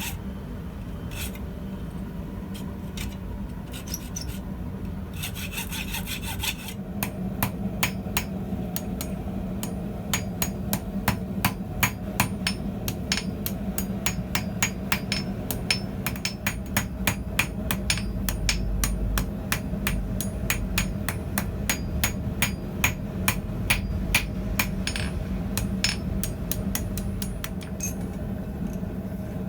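Hot steel being sawn with an old hacksaw blade in short strokes for the first several seconds. Then a steady run of hammer blows on a small bread loaf anvil, about three strikes a second, with a little ringing.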